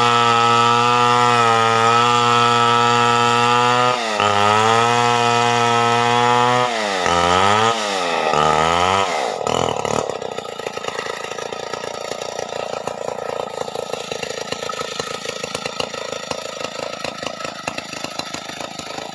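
Stihl 070 two-stroke chainsaw running at high revs, with the pitch dipping and swinging up and down several times, then dropping to a quieter, ragged idle about ten seconds in.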